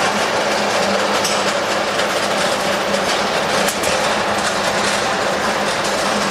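Paper tube winding machine running: a steady, loud mechanical din with a low hum, and one sharp click a little past halfway.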